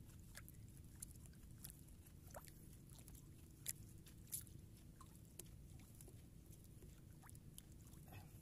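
Near silence on a small boat at sea: a faint low rumble with scattered soft ticks, two of them a little louder around the middle.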